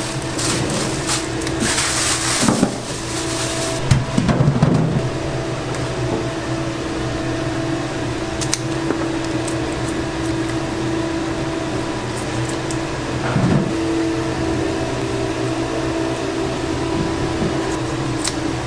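Restaurant kitchen sounds: a steady machine hum with a few held tones, broken by scattered clatter and knocks. There is a brief hiss about two seconds in.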